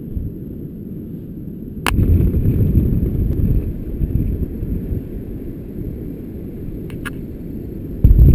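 Wind buffeting the microphone, a low rumbling noise with no tone in it. A sharp click comes about two seconds in, after which the rumble is louder for a few seconds before settling back.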